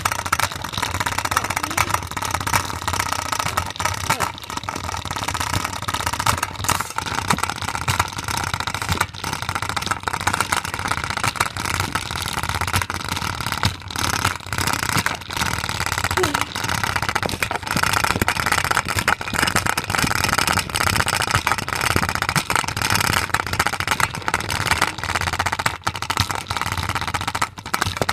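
A Play-Doh container spinning in a spinner, banging and rattling loudly in rapid, continuous knocks: the Play-Doh inside is unbalanced, so the container shakes as it turns.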